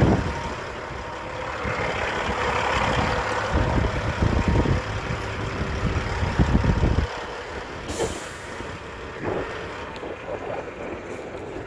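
Semi truck's diesel engine idling, which shuts down about seven seconds in, followed about a second later by a short burst of air hiss.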